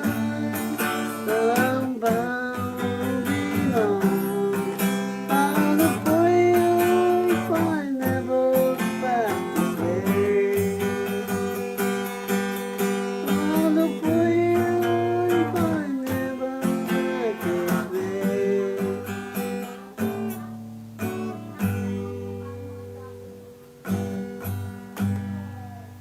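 Acoustic guitar strumming chords in an instrumental stretch of a folk song, with a sliding melody line above the chords. The playing thins out and fades over the last several seconds as the song ends.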